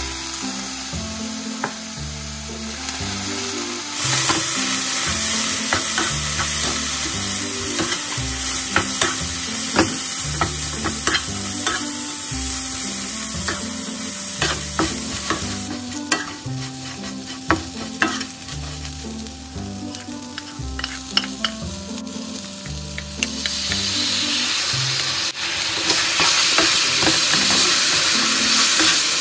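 Dried anchovies stir-frying in oil in a nonstick frying pan: a steady sizzle, with the spatula scraping and clicking against the pan as the fish are tossed. The sizzle grows louder about four seconds in and again near the end.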